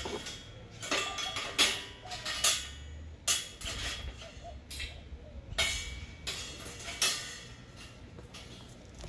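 Steel clanks and rattles as a square-tube steel frame with expanded-metal mesh panels is handled and shifted about by hand on a steel grate table: about ten sharp knocks with brief metallic ringing at irregular intervals, fewer near the end.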